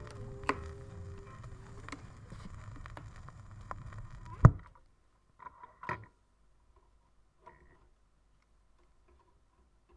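A vinyl 45 turntable, the end of the song dying away into surface noise with a sharp click roughly every second and a half as the needle rides the record. About four and a half seconds in comes a loud pop as the stylus is lifted off, followed by a few faint knocks as the record is handled.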